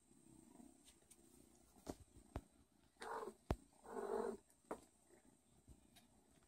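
Mother cat and kittens heard close up: a faint low purr early on, a few soft taps, and two short, noisy cat vocalizations about three and four seconds in.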